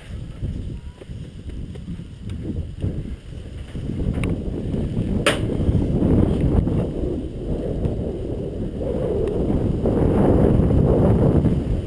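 Wind buffeting a body-worn camera's microphone: a low rumbling rush that grows louder partway through. Two sharp clicks come about four and five seconds in.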